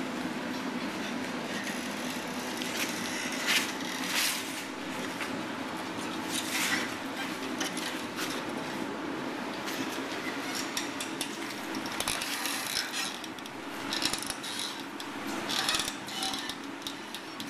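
Hot steel bar being wrapped around a pin in a vise-mounted jig with blacksmith's tongs: scattered metal clinks and scrapes, a few of them sharper, over a steady background noise.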